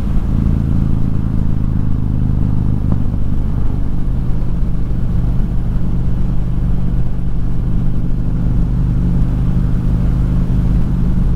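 Harley-Davidson V-twin motorcycle engine running steadily at highway cruising speed, a low, even drone heard from the bike itself, under steady road noise.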